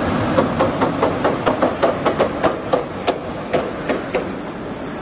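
Three-in-one pure water bottle washing-filling-capping machine running with a steady mechanical noise, over which comes a quick series of sharp clacks, about four a second, that thins out near the end.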